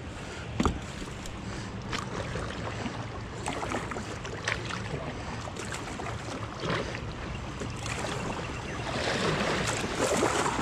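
Rushing water of river rapids heard from a kayak, growing louder toward the end as the boat runs into the rough water, with a few short knocks and splashes against the hull.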